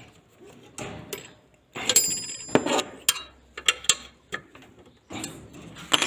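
Metal clicks, knocks and clinks as the mitre saw's steel sliding bar is fitted and bolted on with an Allen key, with a ringing metallic clink about two seconds in.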